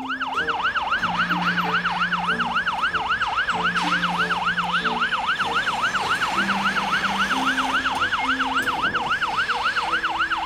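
Ambulance siren sounding a fast yelp, its pitch swooping up and down about three to four times a second without a break.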